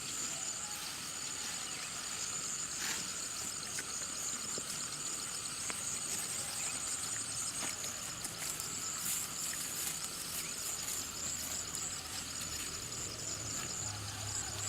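Steady high-pitched chorus of insects shrilling, with a few faint clicks.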